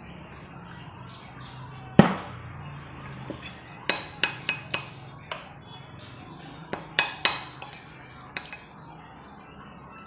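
A single knock on the table about two seconds in, then a spoon and fork clinking against a plate while eating: two clusters of quick, sharp clinks a few seconds apart.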